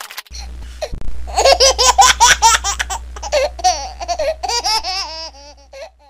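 High-pitched laughter sound effect: a quick run of ha-ha syllables starting about a second in and tailing off near the end, over a steady low hum.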